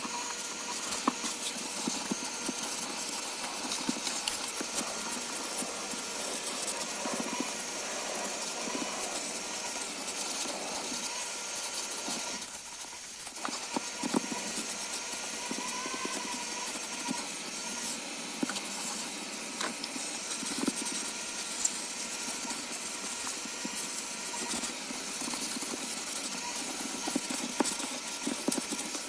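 Vacuum cleaner running steadily with a faint motor whine, the hose sucking up dirt and knocking against the car's interior; the sound drops away briefly about halfway through.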